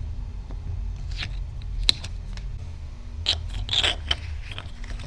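A 3D-printed plastic checker part scraping and clicking as it is slid and pressed onto a 3D printer's hot end, a few short scrapes and sharp clicks with a longer scrape near the end, over a steady low hum.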